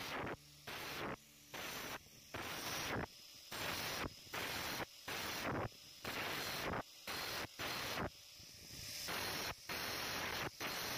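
Angle grinder with a thin cut-off disc cutting a row of short notches into the rim of a steel disc: a burst of grinding noise for each cut, about two a second, with short dips between cuts and one longer cut about eight seconds in.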